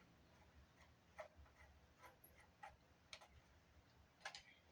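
Faint, irregular light clicks and taps, about six or seven of them, from handling the Fostex MR-8 recorder's plastic casing and a small screwdriver during disassembly.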